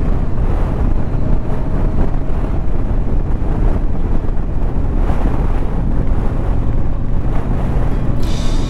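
KTM 790 Adventure R's parallel-twin engine running at a steady, easy pace while riding, mixed with heavy wind rush on the microphone. Near the end, music starts.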